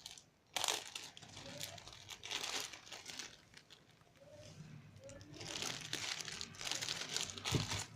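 Crinkling and rustling of a sweet bread's packaging being handled and torn open, in irregular bursts that grow busier in the second half.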